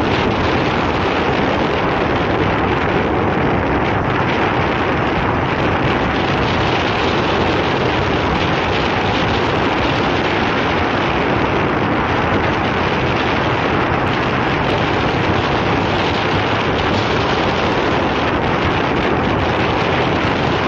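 Steady wind rush on the microphone of a motorcycle being ridden along a road, with the bike's engine and tyre noise mixed in.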